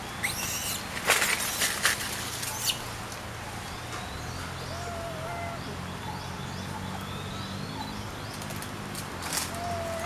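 Treetop ambience: short bursts of rustling in the first few seconds and again near the end, with faint bird chirps and short whistled calls in between over a low steady hum.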